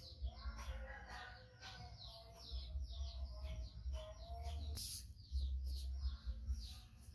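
Small birds chirping in quick, repeated falling notes, with a chicken calling underneath.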